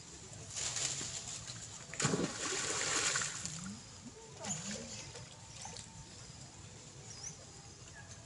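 Water splashing as long-tailed macaques swim and wade in a pond: a short splash about half a second in, then a longer, louder burst of splashing from about two seconds in.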